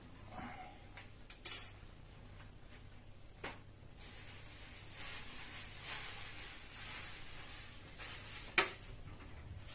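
A metal spoon clinks sharply twice against a stainless steel frying pan, followed by a smaller knock. Then a glass spice shaker is shaken over the pan for a few seconds, giving a soft hiss of falling grains, and a single sharp knock comes near the end.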